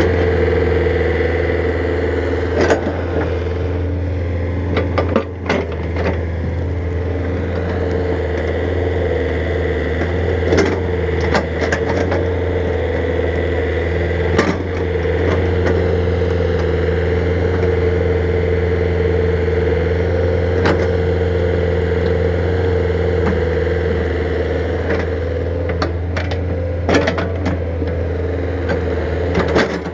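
Excavator's diesel engine running steadily under load, with a steady whine over it and a handful of sharp knocks and cracks scattered through.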